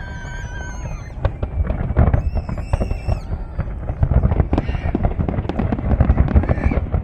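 New Year fireworks display: a dense, continuous run of bangs and crackles that grows louder and busier from about two seconds in. High whistling tones are heard at the start and again around three seconds in.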